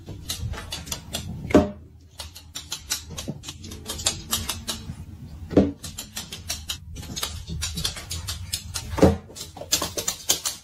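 Rapid, irregular clicking and tapping as a small dog paws at a ring on a quilted bedspread, with three louder knocks about four seconds apart.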